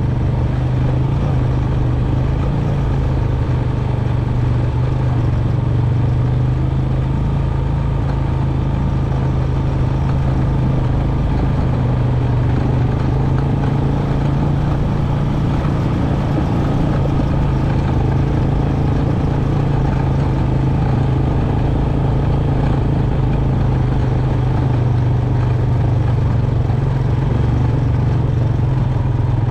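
Honda Recon 250 ATV's single-cylinder four-stroke engine running steadily at an even low pace, with the rattle and crunch of riding over a rocky gravel trail.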